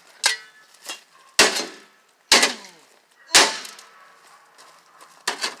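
A shovel striking the rusty sheet-metal casing of an old microwave: a series of hard blows, the three loudest about a second apart, each followed by a metallic ring, with lighter knocks before and after them.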